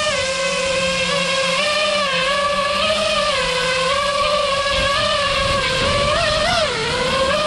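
Brushless motors of a 5-inch FPV freestyle quadcopter whining steadily, the pitch wavering with the throttle, with a quick drop and rise about six and a half seconds in.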